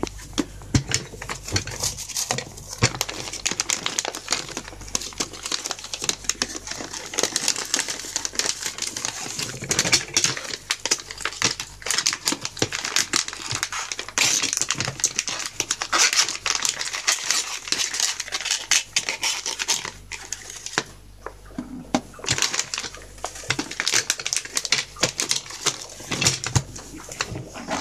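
Rummaging in a plastic storage bin of dog treats: plastic treat packets crinkling, with many sharp clicks and knocks from the bin's lid and latch.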